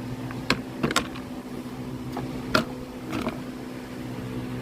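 A few sharp clicks and knocks of parts being handled as the lawn mower engine's cover comes off, over a steady low hum.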